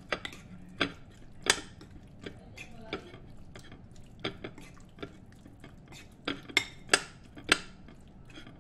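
Metal spoon clinking and scraping against a ceramic bowl while stirring sliced pork in a thick marinade: irregular sharp clinks, a few louder ones about a second and a half in and near the end.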